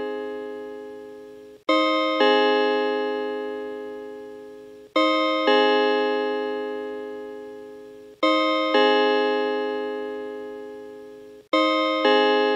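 Seiko Puppet RE515B musical clock's FM-synthesised hour chime: a two-note strike repeated about every three seconds, each note ringing out and fading slowly, counting the hour.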